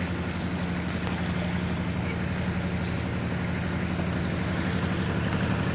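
Canal narrowboat's engine running steadily while cruising: an even, low, fast-pulsing chug at constant pitch.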